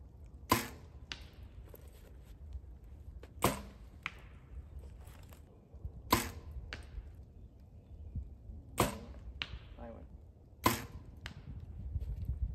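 Compound bows shot in turn by two archers: five sharp string releases, each followed about half a second later by a fainter thwack of the arrow striking the distant target.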